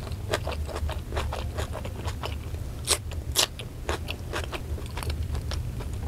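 Mouth chewing a mouthful of rice with squid sambal: a run of small wet clicks and smacks, with two louder, crisper clicks about three seconds in, over a steady low hum.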